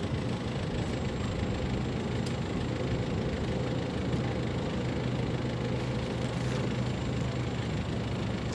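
Steady low engine drone of a container ship under way, an even hum with no change in pitch.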